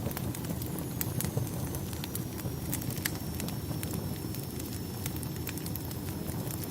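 Wood fire crackling: irregular sharp pops and snaps over a steady low rumble of burning logs. A faint thin high whistle runs through most of it.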